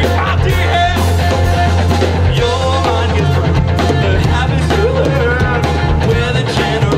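Rock music: a singer over a full band, playing steadily without a break.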